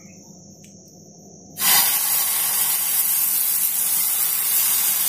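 Banana and wheat-flour pancake batter sizzling on a hot, ghee-greased nonstick tawa as it is poured from a ladle. The steady hiss starts suddenly about a second and a half in, after a quiet start.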